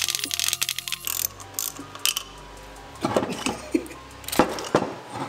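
Ratchet wrench clicking rapidly for about a second as it turns an E8 external Torx socket to back a stud out of a Duramax water pump. Scattered metal knocks of tools and parts follow.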